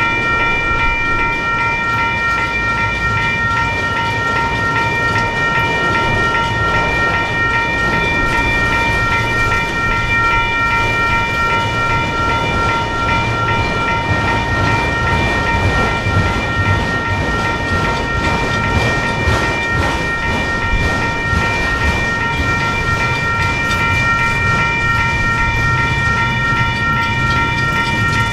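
Mechanical railroad crossing bell ringing continuously over the low rumble and wheel clicks of a long freight train's cars rolling slowly past.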